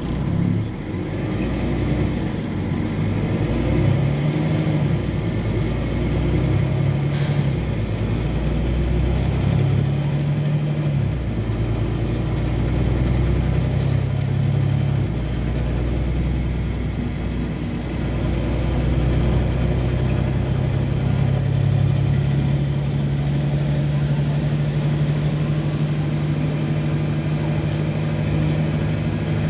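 Cabin sound of a LiAZ 5292.22 diesel city bus under way: the engine pulls away, its pitch rising and dropping back several times as it shifts up through the gears, then runs at a steady pitch. A brief hiss about seven seconds in.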